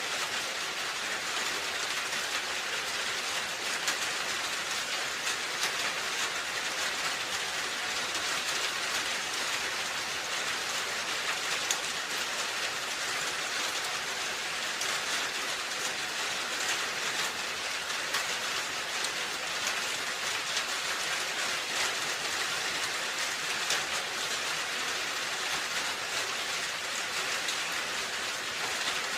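Steady rain falling on a roof, an even hiss dense with the small ticks of individual drops striking.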